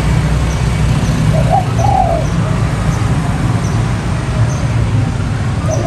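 Spotted dove cooing: a two-part coo about one and a half seconds in, and the next coo starting at the very end, over a steady low rumble. It is the call of a decoy dove used to lure wild spotted doves.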